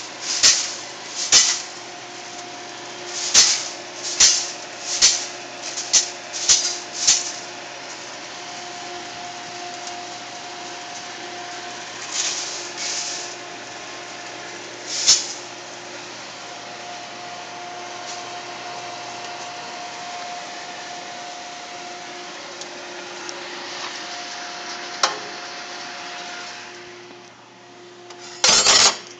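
Commercial drum coffee roaster running with a steady blower hum and faint fan tones, while freshly roasted beans rattle across the perforated cooling tray as its stirring arms sweep them. A quick run of sharp rattles comes in the first seven seconds, a few more follow later, and a loud clatter comes just before the end.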